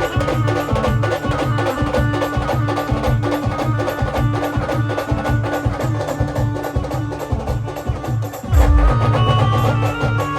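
A live band plays with dense, rapid drumming under sustained melody tones. About eight and a half seconds in, the full band with heavy bass drum comes back in.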